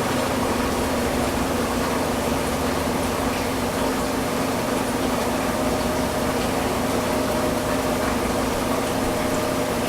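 Front-load washing machine in its spin cycle: the drum spinning fast with a steady whir and a hum of several held tones. A faint higher tone joins about halfway through.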